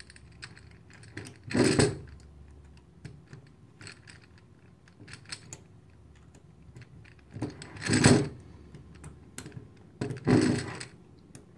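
Small hex key turning and clicking in the set screws of an aluminium air-chuck end cap: light scattered metal ticks, with three louder half-second handling sounds as the key and chuck are gripped and moved.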